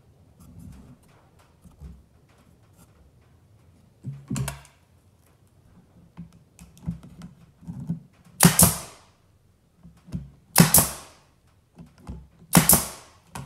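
Pneumatic pin nailer firing three times, about two seconds apart, each a sharp loud shot, driving pins into a freshly glued pine leg joint. A smaller knock of the wood being handled comes about four seconds in.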